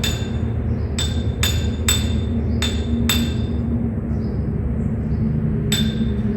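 Hammer knocking a metal part into a motorcycle front fork: about six ringing metal strikes at roughly half-second intervals, then a pause and one more strike near the end.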